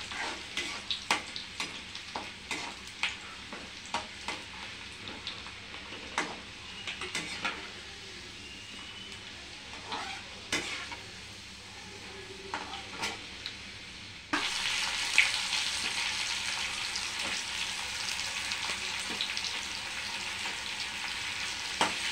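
Whole spices frying in hot oil in a kadai, stirred with a metal spatula that clicks and scrapes against the pan. About fourteen seconds in the sizzle suddenly grows louder and denser as chopped onion goes into the oil.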